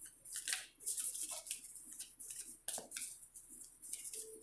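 Tarot cards being shuffled by hand: a quick, irregular string of crisp card-on-card shuffling sounds.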